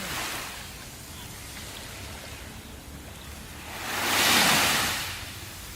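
Sea waves: a steady wash of surf, with one wave surging and breaking louder about four seconds in, then falling away.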